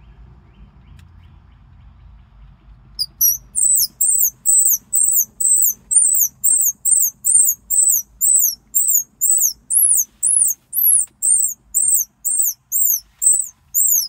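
Homemade squirrel call blown in a fast series of short, high-pitched chirps, about two a second, starting about three seconds in, imitating a squirrel's chatter.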